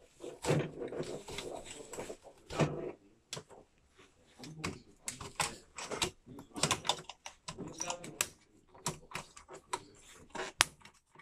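Irregular run of small clicks, snaps and knocks of plastic clips, connectors and metal brackets being worked on a Mercedes-Benz W213 wide cockpit display's metal back housing by hand and with a screwdriver during dismantling.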